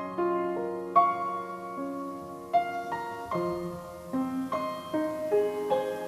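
Slow solo piano introduction: notes and chords struck one after another, each left to ring out.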